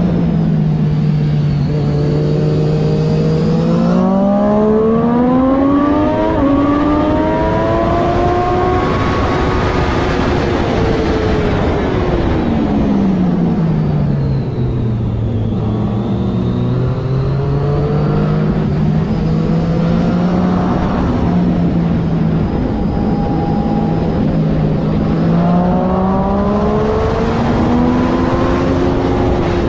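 Triumph Daytona 675R's inline three-cylinder engine at racing speed, pulling up through the gears in steps, then revs dropping steeply around the middle under braking and downshifts, and pulling hard again near the end, with constant wind rush.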